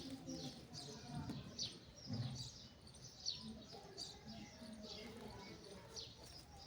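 Small birds chirping busily: many short, high chirps that sweep downward, several a second, with a faint low murmur beneath.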